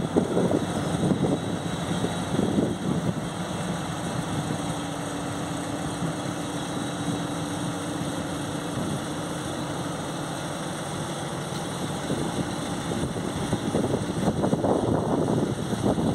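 SM42 diesel shunting locomotive's engine running at low revs as the locomotive moves slowly past. A steady low rumble carries a faint held hum through the middle, and the sound grows louder and rougher near the end as the locomotive draws alongside.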